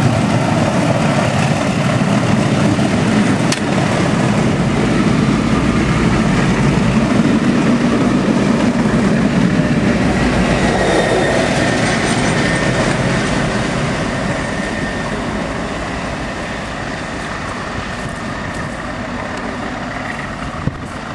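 A locomotive-hauled passenger train's coaches passing close at speed, a steady rumble and rattle of wheels on the rails. It fades gradually through the second half as the rear of the train goes by and draws away.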